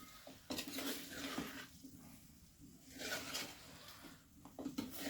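A spoon stirring chicken pieces in a pan of hot masala, scraping and sizzling in three short spells with quieter gaps between.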